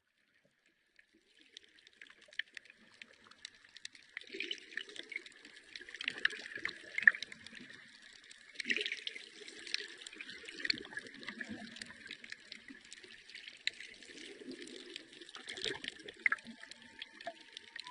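Underwater ambience of bubbling water and dense crackling clicks. Near the end a long, steady call begins and rises slightly in pitch, like a whale vocalization.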